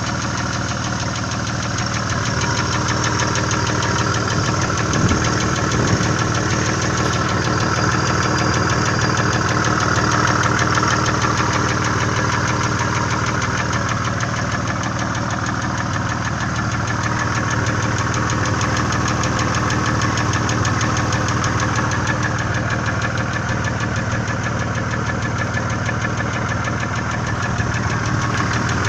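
Nissan VG30E 3.0-litre V6 running at a steady speed with a fast, even ticking from the top end. The owner puts the ticking down to knocking hydraulic lifters and valve cam lobes.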